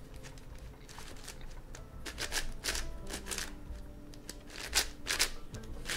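MoFang JiaoShi Meilong 12x12 cube having its layers turned by hand: repeated crunchy clicking and scraping of the many small plastic pieces, which are still unlubricated. Quiet background music runs underneath.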